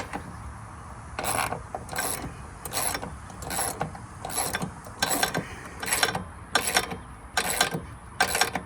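Hand ratchet wrench clicking as half-inch screws are tightened by hand, about a dozen strokes at roughly one every two-thirds of a second.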